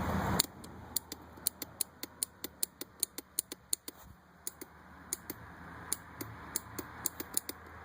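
2002 Yamaha Raptor 660R's starter relay clicking over and over, about three or four times a second, while the engine does not crank at all. The owner blames a battery too small for the quad, since the starter and relay are brand new.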